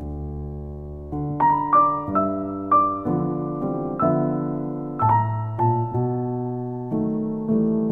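Background piano music: a held chord, then from about a second in a gentle melody of single struck notes, each fading after it is played.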